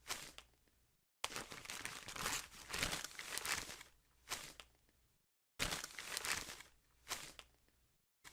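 Gift wrapping paper being torn and crumpled as a present is unwrapped: noisy rustling and ripping in several bursts. The sound cuts off abruptly to dead silence twice.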